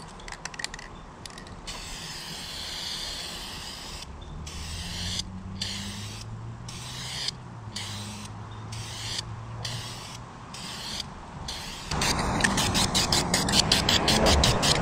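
Aerosol spray-paint can hissing in a run of short strokes, with a brief pause about once a second between them. About twelve seconds in, louder rapid rattling starts as the can is shaken and its mixing ball knocks inside.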